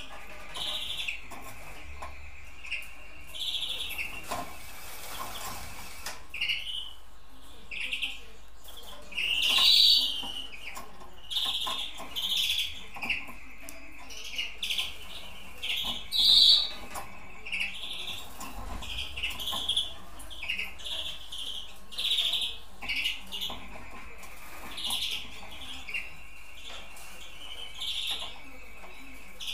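Caged pied-mutation European greenfinches calling and singing: short chirps and repeated rattling trills, several a few seconds apart, two of them louder about a third and halfway through.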